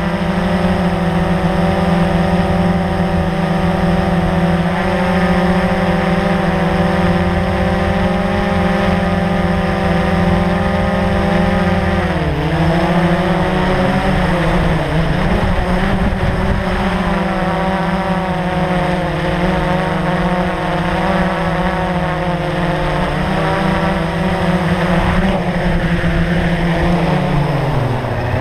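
Blade 350 QX quadcopter's four brushless motors and propellers humming steadily, heard close up from the GoPro mounted on its frame. The pitch dips and wavers about twelve seconds in, and drops near the end as the quadcopter sets down on the grass.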